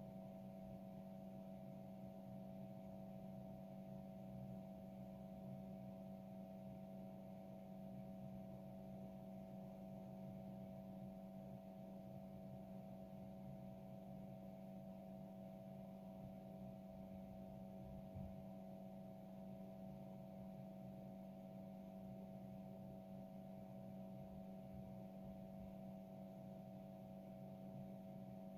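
Faint, steady electrical hum, with one soft low bump partway through.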